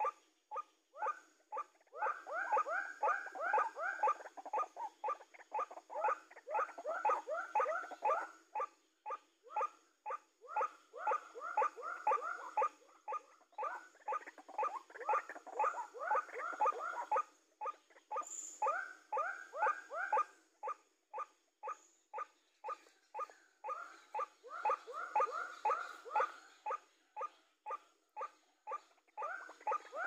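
White-breasted waterhen calling: a long, unbroken run of repeated notes, about four a second, swelling into louder bouts every few seconds.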